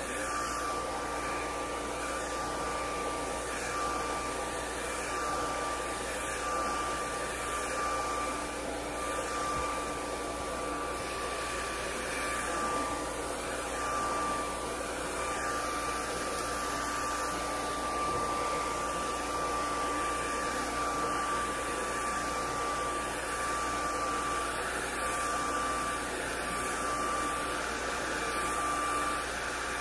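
Handheld hair dryer with a comb attachment running steadily on a child's hair: a constant whirring rush of air with a thin, high motor whine.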